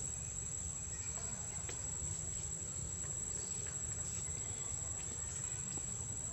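Outdoor ambience: a steady high-pitched insect drone over a low rumble, with a few faint soft clicks scattered through it.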